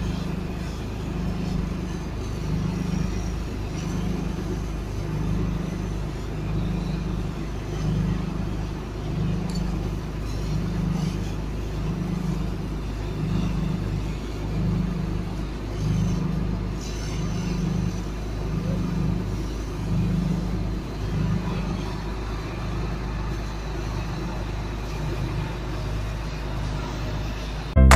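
Fire truck engine running steadily to drive its water pump while a hose is in use, with a regular low throb about once a second.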